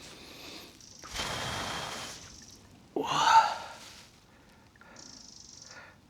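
A man's long breathy exhale about a second in, then a short voiced sigh about three seconds in, the loudest sound here.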